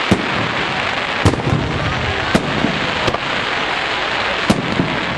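Aerial firework shells bursting overhead: five sharp bangs at uneven intervals of about a second, over a steady hiss.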